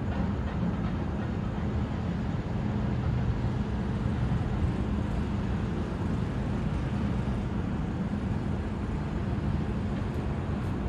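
Steady low rumble of city traffic, an even wash of noise with no single event standing out.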